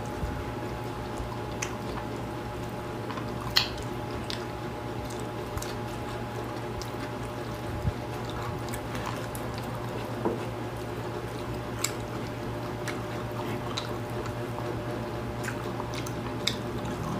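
Quiet eating sounds: sparse wet clicks and smacks of two people chewing and picking at food with their fingers, over a steady low hum.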